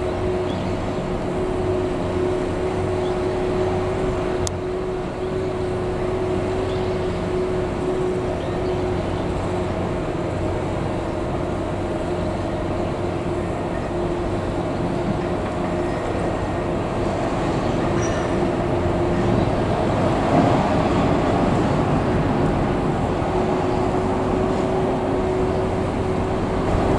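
Depot shunting locomotive (switcher) running as it moves along the yard track: a steady mechanical hum with a held whining tone, getting a little louder about two-thirds of the way through.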